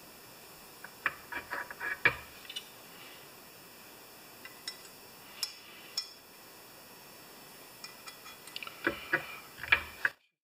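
Small metal parts of a Homelite XP 1020 chainsaw's ignition breaker points clicking and clinking as they are fitted by hand. There are scattered light clicks and taps, a louder cluster near the end, and then the sound stops abruptly.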